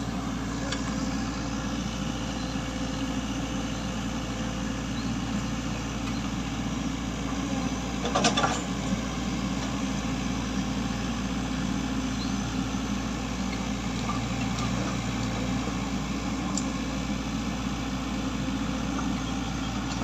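Mini excavator's diesel engine running steadily, with one brief louder clatter about eight seconds in.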